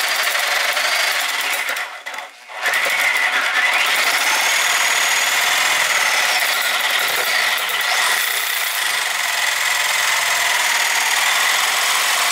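Corded reciprocating saw cutting a metal seat-slide rail clamped in a vise. It stops briefly about two seconds in, then runs on steadily through the cut.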